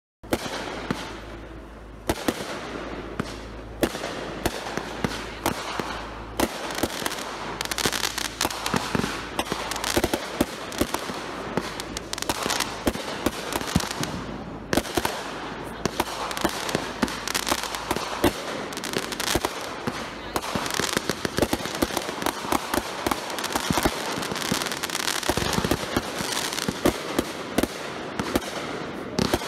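Consumer aerial fireworks going off in quick succession: sharp reports and bursts over continuous crackling, starting abruptly just after the start.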